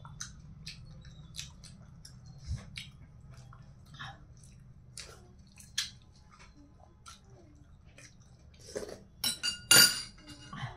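A person eating a rice meal with fried chicken and fish by hand, close to the microphone: chewing, with scattered small clicks and crackles. A cluster of louder, sharper noises comes near the end.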